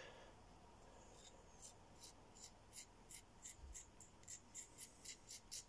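Faint, quick scratchy ticks, about three a second, starting about a second in, as a finger is stroked across the edge of a freshly sharpened pocket-knife blade and catches on the raised burr: the sign that the metal has been pushed over the very edge to the other side.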